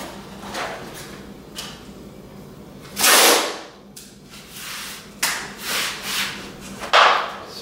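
Masking tape pulled off the roll in several ripping pulls and pressed along the seam between cork underlayment boards, the loudest pull about three seconds in and another near the end, with light knocks of the boards being handled.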